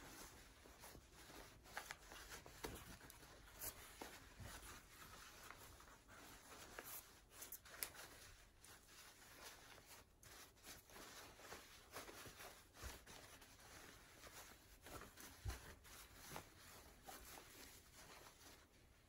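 Faint, scattered rustling of fabric being handled and pulled through a small opening as a lined scrub cap is turned right side out, with a few soft knocks.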